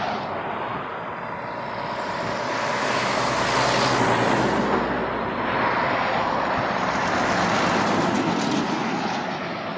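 Heavy trucks carrying excavators on low-bed trailers passing close by on a highway. Their tyre and engine noise swells and fades twice, loudest about four and eight seconds in.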